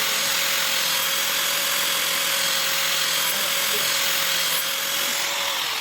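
An electric power tool running steadily: a constant motor whine over an even hiss. The whine sags slightly in pitch near the end.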